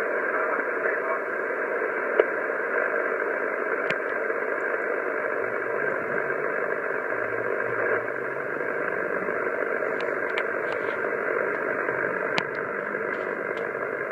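HF shortwave receiver in upper-sideband mode on an idle 8855 kHz aviation channel, giving steady band noise between transmissions. The hiss stops sharply above the voice range, and a few faint clicks of static come in the second half.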